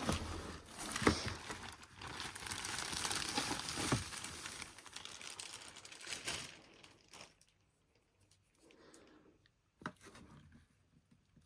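Cardboard and plastic packaging crinkling, rustling and tearing as a plastic blow mold is pulled out of its shipping box, dying down after about six seconds to a few light handling sounds and one sharp knock near the end.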